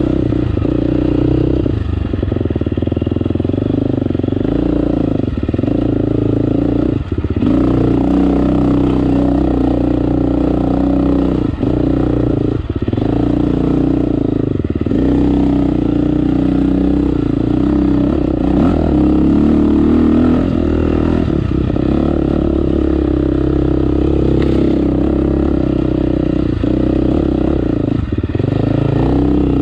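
2018 KTM 350 XC-F's single-cylinder four-stroke engine running under load on a dirt trail, the throttle opening and closing with short drops in engine sound every few seconds.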